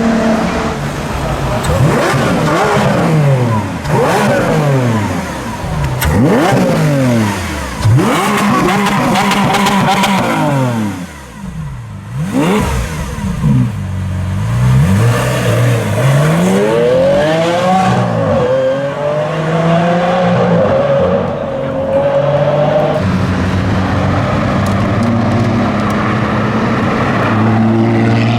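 V12 supercar engine revved hard again and again, its pitch climbing and dropping with each blip, then settling into a steadier drone near the end.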